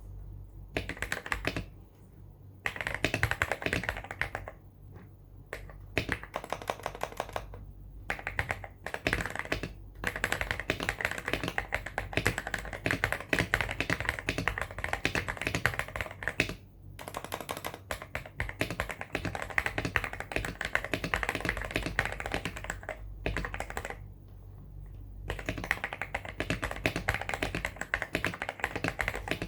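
Typing on a Weikav WK75 Pro mechanical keyboard with MMD Cream linear switches and PBT keycaps: fast runs of keystrokes with short pauses between bursts.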